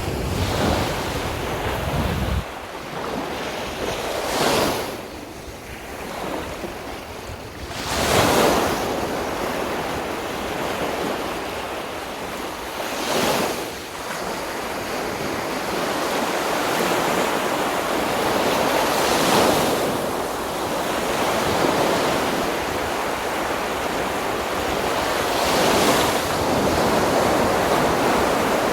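Sea waves breaking and washing up a sandy beach, a wave surging in about every five or six seconds. Wind rumbles on the microphone in the first two seconds, then stops.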